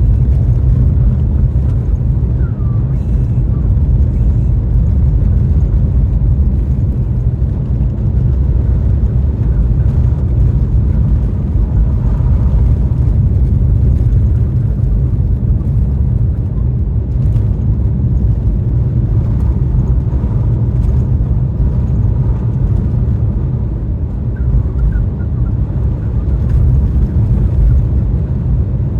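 Car driving on a snowy road: a loud, steady low rumble of engine and road noise.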